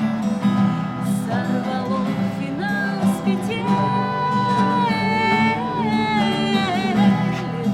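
A woman singing a song with guitar accompaniment. She holds long notes with vibrato.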